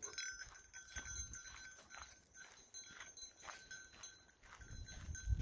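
Footsteps on a dry dirt trail, about two a second, with a light metallic jingle running through them. Wind buffets the microphone near the end.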